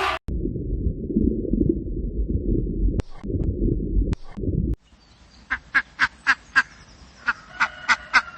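A loud low rumbling noise for the first few seconds, then a duck quacking in a quick run of short quacks, about three a second, with a second bird's longer calls joining near the end.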